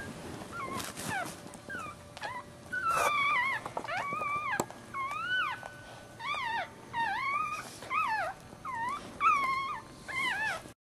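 Newborn puppy crying: a string of short, high, squeaky whimpers, each rising and falling in pitch, about one a second, until the sound cuts off suddenly near the end.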